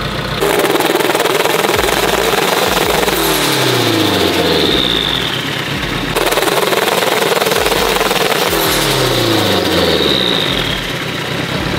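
Turbocharged Honda K20 engine revved hard twice, each time held high for a few seconds and then let fall, its pitch sliding down as the revs drop. It is being revved to shoot flames from its flame tune.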